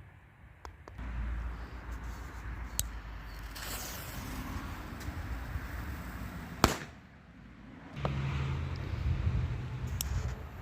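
A firecracker going off with one sharp, loud bang about two-thirds of the way in, amid a steady hiss and low rumbling noise, with a few faint clicks before and after.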